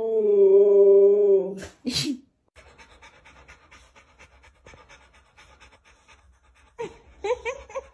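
A dog lets out one long, drawn-out vocal moan, falling slightly in pitch, that ends about two seconds in. After a cut, a Rottweiler pants, with quick rhythmic pants starting near the end.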